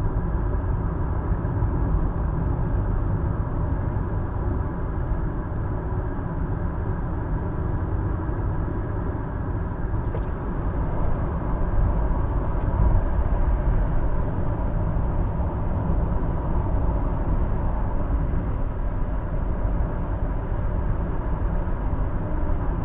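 Steady low rumbling noise with a faint steady hum in it, unbroken throughout.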